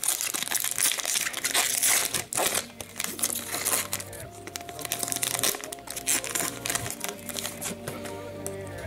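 Foil wrapper of a hockey card pack crinkling and crackling as it is torn open and handled, heaviest in the first three seconds. Background music plays underneath.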